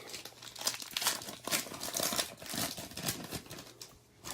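Foil wrapper of a trading card pack crinkling and tearing as it is opened by hand, an irregular run of crackles that eases off near the end.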